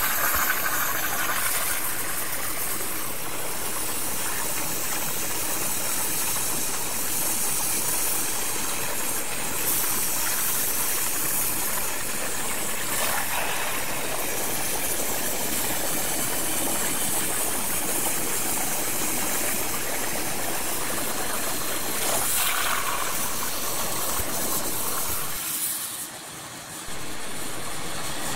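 Oxy-propylene cutting torch hissing steadily as its cutting oxygen burns through steel plate on a CNC table. The hiss dips briefly near the end.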